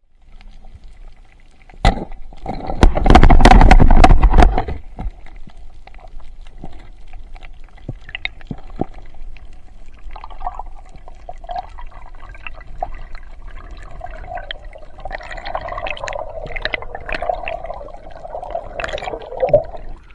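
Underwater water noise and bubbling picked up by a diver's camera. A sharp knock comes about two seconds in, followed by a loud rush of bubbles for about two seconds, then a lower, steady bubbling that grows busier near the end.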